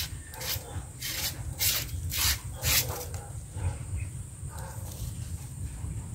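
A run of about five short rustles and swishes in the first three seconds as a fishing line is cast and handled among streamside plants, then quieter rustling, over a steady high insect drone.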